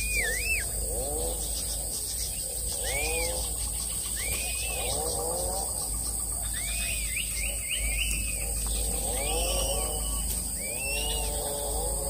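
Birds calling: short arched calls repeating every second or two, over lower rising-and-falling calls that overlap one another.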